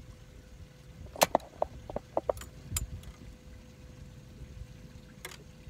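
A run of sharp clicks and light knocks as a small crappie is unhooked from a jig by hand, bunched about one to three seconds in, with one more near the end, over a faint steady hum.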